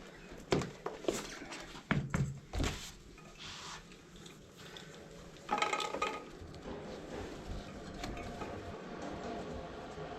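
Knocks and clatter of a bicycle wheel and tyre being handled while a tyre is fitted by hand without tyre levers, with several sharp knocks in the first few seconds and a rougher rattle about halfway through. A low steady hum comes in after about seven seconds.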